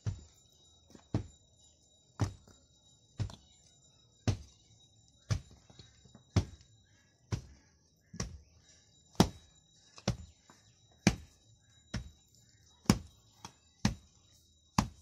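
Steady, unhurried dull knocks about once a second: earth being tamped by hand with a long bamboo rammer in a foundation trench.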